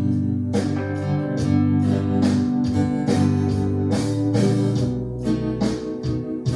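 Instrumental passage of a slow blues-tinged song, with guitar strummed in a steady rhythm over sustained bass and chord notes.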